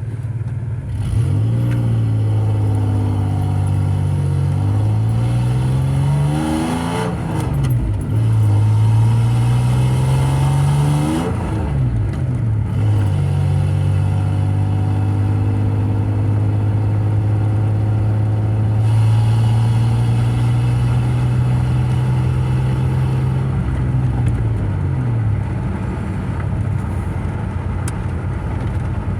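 Car engine heard from inside the cabin while driving: the revs climb under acceleration and drop sharply at gear changes about seven and eleven seconds in, then hold steady while cruising and fall away near the end.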